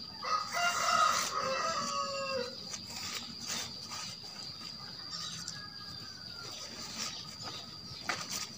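A rooster crowing once, a call of about two seconds that slides down in pitch at the end, over a steady high whine. Light clicks and rustles follow as tent poles and fabric are handled.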